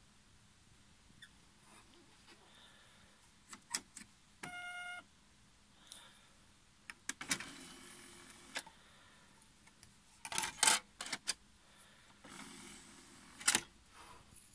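Marantz CD-75DX CD player's disc tray motor whirring open, then a few button clicks, then the tray whirring shut and closing with a sharp click. Earlier there are button clicks and a short beep.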